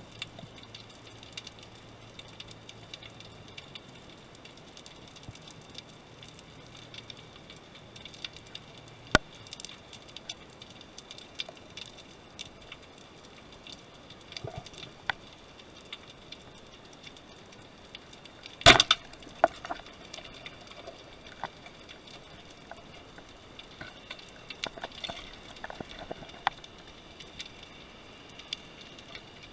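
Underwater sound picked up by a diver's camera: scattered sharp clicks and crackles, with a louder cluster of knocks about two-thirds of the way through.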